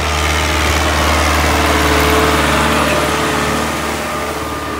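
New Holland 850 tractor's diesel engine working under load while pulling an eleven-tine cultivator through the soil. It runs steadily, growing louder to a peak about two seconds in, then eases off as the tractor passes.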